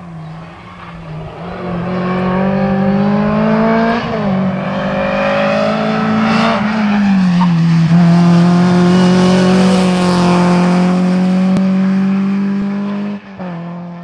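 Renault Clio RS rally car's engine running hard at high revs as it comes closer and passes at speed, getting louder over the first two seconds. The engine note drops twice, about four and seven seconds in.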